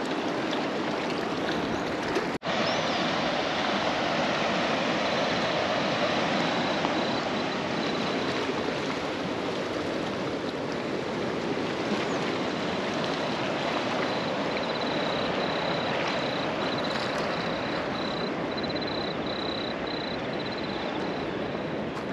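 Steady rush of fast-flowing tidal water at a river mouth, with a brief dropout about two seconds in. A thin high tone joins a few seconds in and breaks into short pulses near the end.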